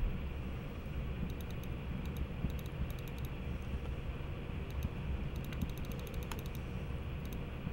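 Typing on a computer keyboard: clusters of quick key clicks, with a fast run a little past the middle, over a steady low hum.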